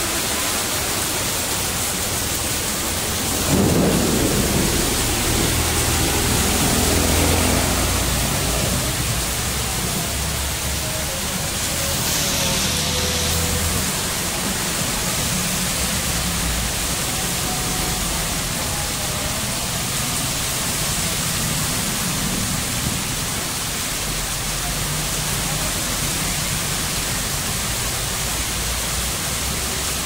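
Heavy rain pouring steadily. A deep rumble comes in suddenly about three and a half seconds in and fades out over several seconds.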